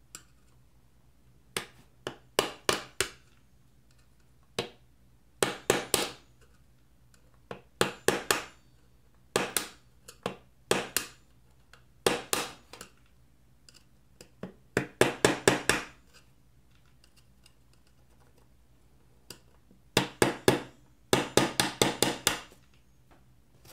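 Sharp metal tapping in short bursts of two to six quick strikes, with pauses between: locking pliers used as a hammer on a screwdriver to knock out the rivets that held the keyboard in a 2015 MacBook Pro's aluminium top case.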